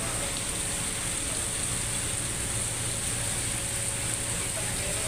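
Heavy rain falling steadily, with a low, even engine hum underneath.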